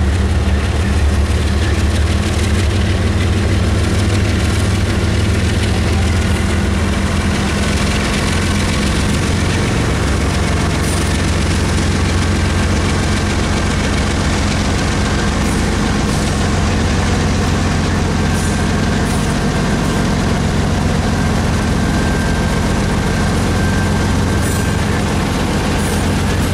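Diesel-electric freight locomotives, a lashup of Norfolk Southern and BNSF units, rumbling past in a steady, loud low drone of their engines.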